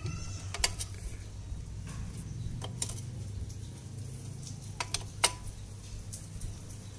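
Wrench clicking and clinking against metal as bolts are tightened on a Yamaha LC135 motorcycle engine: about five sharp metallic clicks, spread out, over a steady low hum.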